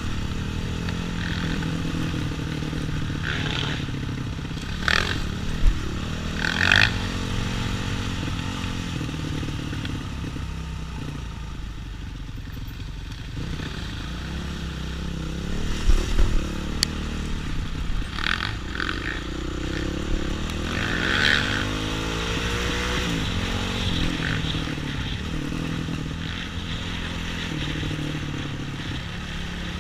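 Off-road trail motorcycle engine running under changing throttle, its pitch rising and falling. Several loud clattering knocks come through over rough ground.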